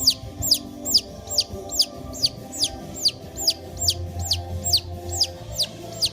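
A bird chirping over and over, about two high-pitched downward-sliding chirps a second in a steady rhythm, with background music underneath.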